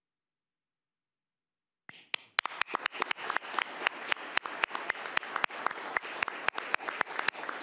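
Audience applauding, many hands clapping, starting suddenly about two seconds in.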